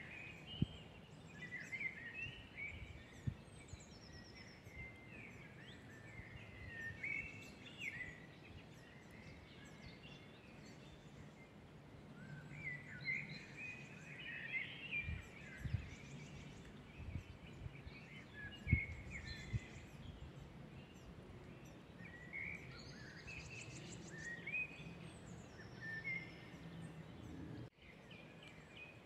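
Several woodland songbirds singing and chirping at once, short overlapping phrases throughout, over a low rumble with a few scattered thumps.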